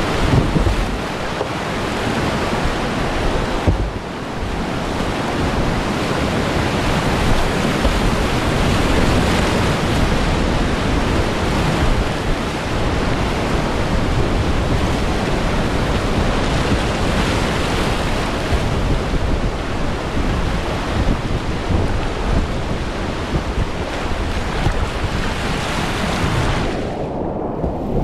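Loud rushing whitewater of a river rapid heard from a kayak in the current, with wind noise on the microphone. About a second before the end the hiss suddenly turns muffled.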